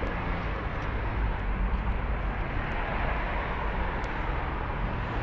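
Steady rumble of urban traffic, an even background noise with no distinct events.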